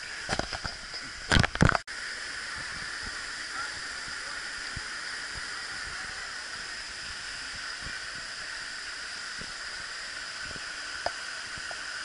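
Waterfall rushing steadily: an even hiss of falling water. A few rustles and knocks on the microphone come in the first two seconds.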